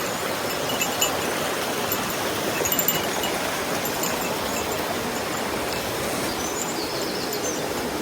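Steady rushing of a mountain stream, with a few faint, brief high chirps over it.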